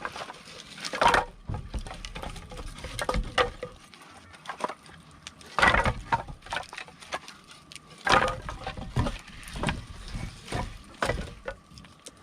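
Wood campfire crackling, with irregular sharp pops and snaps and a few louder bursts of crackle spread through.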